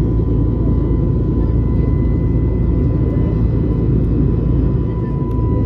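Steady in-flight cabin noise of an Airbus A321neo with CFM LEAP-1A engines: a dense low rush of engine and airflow noise, with a faint steady high whine over it.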